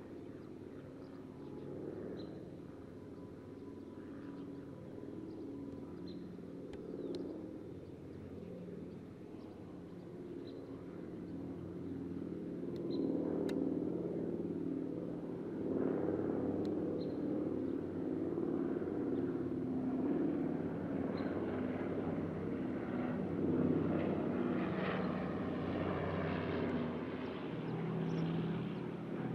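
B-17G Flying Fortress's four nine-cylinder radial engines droning steadily in a flyover, growing louder from about halfway through as the bomber comes closer.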